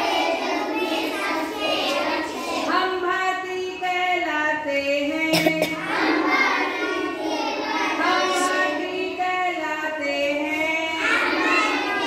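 A group of schoolchildren singing a Hindi action song together in unison. There is a single sharp click about five seconds in.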